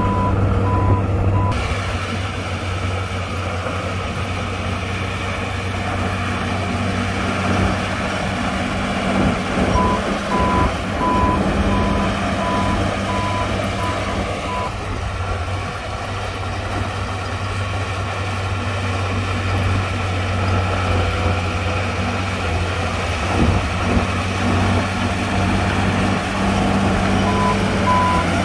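Heavy earthmoving machine's diesel engine running steadily while its reversing alarm beeps in runs of about two beeps a second: briefly at the start, for about five seconds in the middle, and again near the end.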